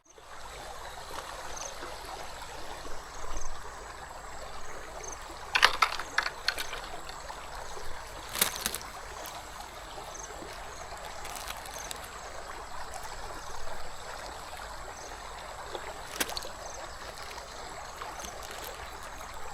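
River water running steadily, with a few short clicking rattles: a cluster about six seconds in and single clicks about eight and sixteen seconds in.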